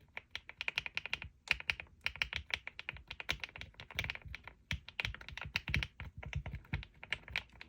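Typing on a new Rainy 75 mechanical keyboard: a quick, uneven run of key clacks, several keystrokes a second.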